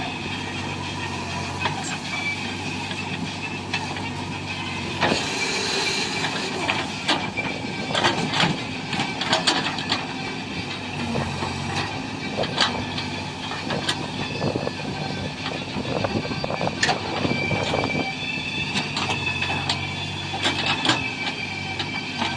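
Heavy diesel engine running steadily, with frequent sharp metal clanks and rattles that start about five seconds in and come and go.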